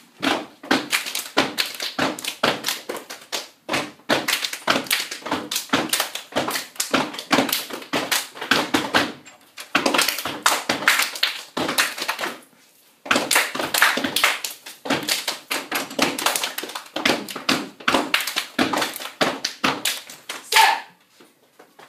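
A group of girls step dancing: rapid, rhythmic foot stomps on a hard floor mixed with hand claps and body slaps, several strikes a second, with a short pause a little past halfway.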